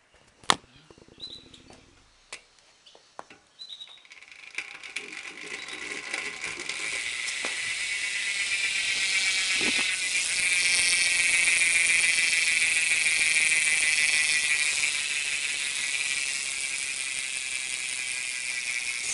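BMX rear Eclat cassette hub buzzing as the wheel is spun freely: a fast, steady ratcheting of the freewheel mechanism. It starts about four seconds in after a few handling clicks, grows louder, then eases slightly.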